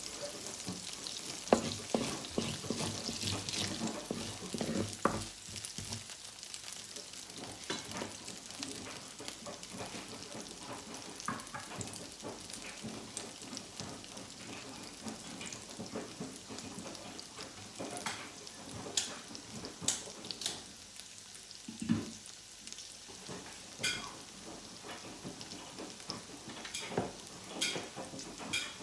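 Food sizzling in a frying pan as it is stir-fried, with scattered sharp clicks of the spatula against the pan. The sizzle is loudest in the first few seconds, then settles to a steadier, quieter hiss.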